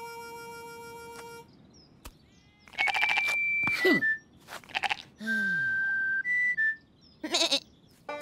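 Cartoon sheep characters bleating in short, voiced baa calls, mixed with brief comic music: a held note in the first second or so, then short high tones and a falling slide between the bleats.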